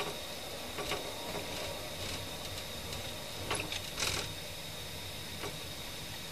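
Patrol car cabin noise while driving slowly: a steady low engine and road hum with a thin high steady whine and a few faint, irregular light clicks.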